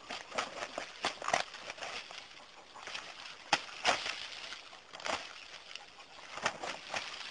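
A rooster and a duck fighting: irregular sharp wing slaps and scuffles, loudest a little past halfway.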